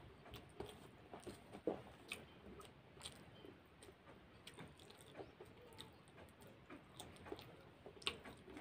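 Faint chewing and mouth smacks of a man eating rice and fritters by hand, with scattered small clicks and taps, one louder about two seconds in.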